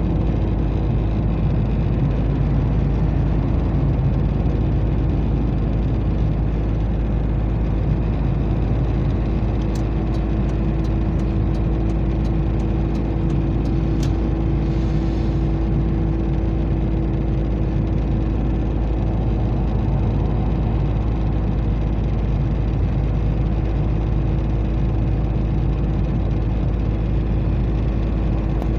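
Steady road and engine noise heard inside a large vehicle's cabin as it drives, a constant low rumble with an even hum running through it.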